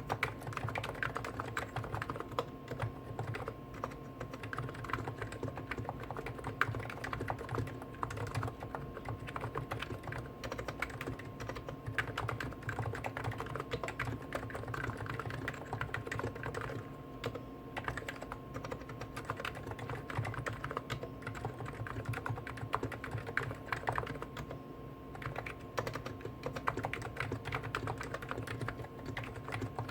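Fast, continuous typing on two Hansung GTune electrostatic capacitive keyboards at once, a Snow White and an OfficeMaster, with their keystrokes overlapping into a dense stream of clicks. A faint steady hum runs underneath.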